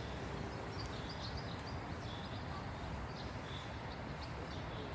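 Small songbirds chirping quietly: short high chirps scattered throughout, over a low steady outdoor rumble.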